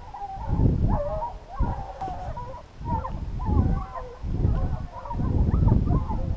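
A pack of boar-hunting hounds baying in full cry, several wavering voices overlapping, the sign that they are running on the scent. Wind buffets the microphone in gusts underneath.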